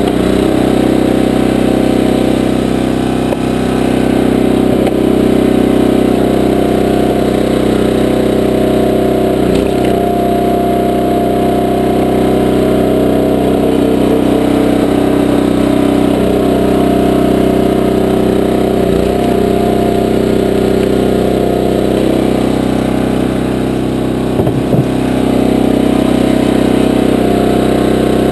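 Small gasoline engine of a 20-ton Powerhorse horizontal dual-split log splitter running steadily, driving the hydraulic pump while logs are split. Its note changes briefly a few times, as the hydraulic load comes and goes.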